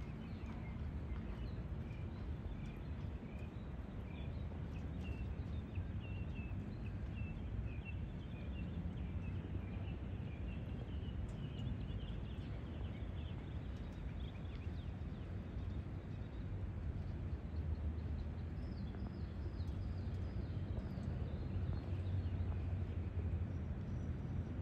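Steady outdoor ambience: a low rumble and haze with a run of faint, short high chirps through the middle and later part.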